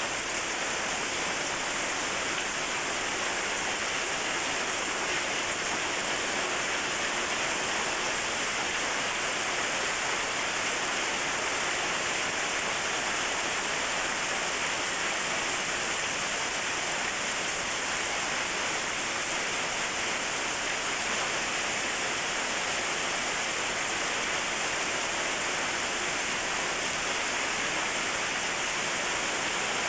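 Heavy hailstorm with rain: a steady, dense hiss of hail and rain falling, unbroken throughout.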